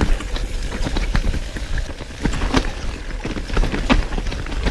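Mountain bike going fast down a rough, wet trail: the tyres and frame rattle over rocks and roots with many sharp knocks and clatters, over a steady low wind rumble on the helmet-camera microphone.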